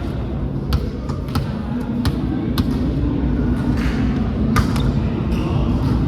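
Several sharp, irregularly spaced thumps and slaps of a volleyball being hit and bouncing on a hard court floor, over a steady low background hum.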